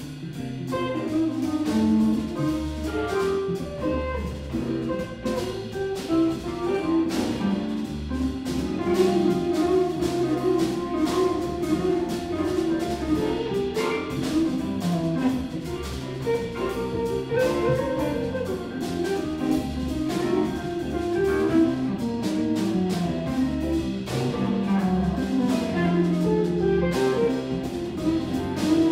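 Live blues band playing an instrumental swing number on electric guitars, keyboard, bass and drum kit, steady and without a break.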